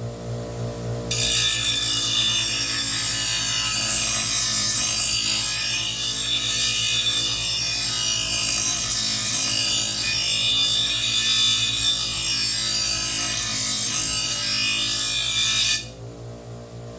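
Steel lawn mower blade ground against a running bench grinder's stone, a steady harsh grinding rasp that starts about a second in and stops about a second before the end, over the grinder motor's steady hum. The blade's rounded, blunt cutting edge is being put back to a sharp bevel.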